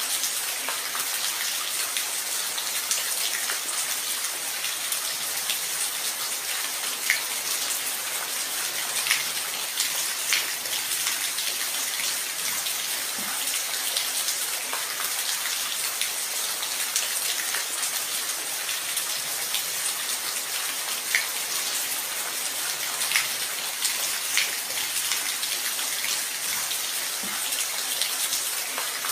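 Steady rain falling, an even hiss with scattered louder individual drops.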